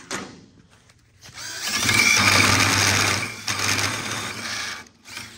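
Hole saw on a Rogue Fabrication tube notcher, spun by a drill, cutting into a metal tube to finish a notch: a loud steady cut for about three and a half seconds, starting a little over a second in, after a short knock right at the start.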